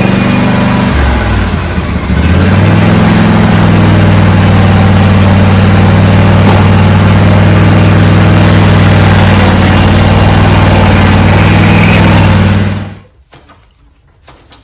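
John Deere LA165 lawn tractor engine running on its first start after reassembly: uneven for the first couple of seconds, then settling into a steady run. It shuts off suddenly near the end, leaving a few faint clicks.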